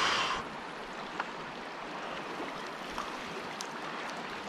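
Small mountain river flowing steadily. A short, louder rush of noise comes right at the start, and a few faint clicks follow.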